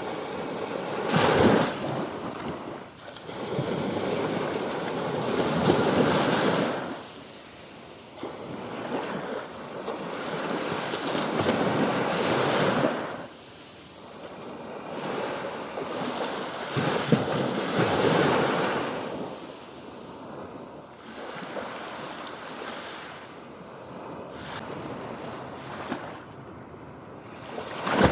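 Mediterranean Sea waves breaking and washing up the beach, the sound of the surf swelling and falling away every few seconds.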